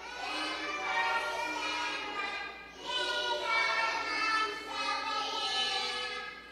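A group of young children singing a song together in long held notes. The singing stops just before the end.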